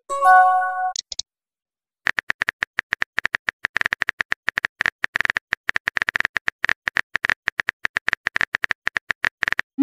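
Phone keyboard typing clicks, a quick even run of taps as a text message is typed out, beginning about two seconds in. Near the start a short chime of several tones plays as a message is sent.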